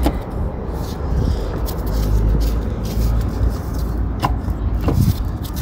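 Scattered knocks and clicks of metal parts being shifted as a seized rear shock absorber is worked out of a motorcycle frame, over a steady low rumble. The sharpest two knocks come near the end.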